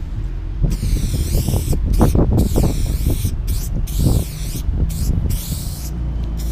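Aerosol spray paint can hissing in a string of bursts of a second or less with short breaks between, its tone swishing up and down as the can sweeps across the wall while painting letters, over a low rumble.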